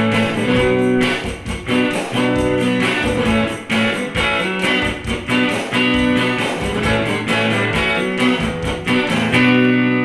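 Electric guitar strumming chords to close the song, with a last chord held and left to ring near the end.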